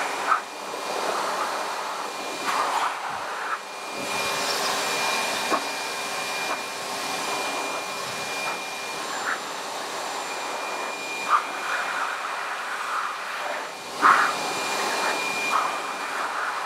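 Metro Vac Air Force Commander dog dryer running, blowing a steady rush of air through its hose nozzle with a thin, steady high whine from its motor, the air noise swelling briefly a few times.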